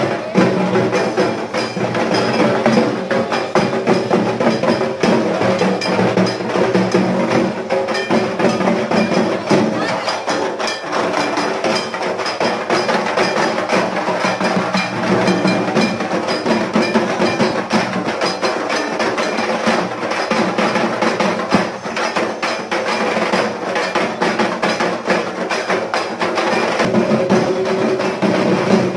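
Music with busy drumming: dense, rapid strikes that keep up the whole time over steady held notes.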